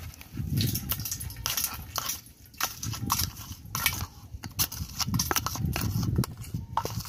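Knife blade scraping a sticky rice-and-bran bait mash out of a plastic cup into an earthenware pot: a run of short scrapes and soft squelches, with the blade clicking against the cup and the clay rim.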